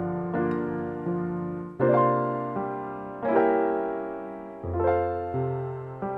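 Background music: soft piano chords, each struck and left to ring and fade, changing about every second or so.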